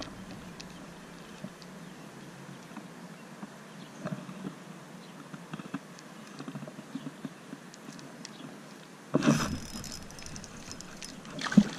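Light clicks and ticks of a spinning rod, reel and line being handled over a low steady background hiss, with a short louder burst of noise about nine seconds in and a sharp knock near the end.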